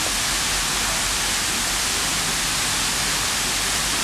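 A steady, even hiss that holds unchanged throughout, with no distinct events.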